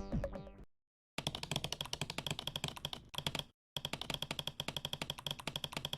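Fast clicking like typing on a keyboard, about eight clicks a second, in two runs with a short break about three and a half seconds in. A music cue fades out just before it.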